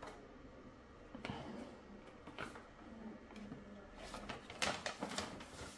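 A folded paper instruction sheet rustling and crinkling as it is handled. There are a few separate rustles at first, then busier, louder rustling over the last couple of seconds as the sheet is moved and unfolded.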